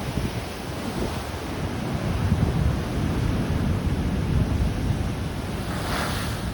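Storm-force jugo wind buffeting the microphone with a heavy low rumble, over the surf of a rough sea. A brighter rushing hiss swells near the end.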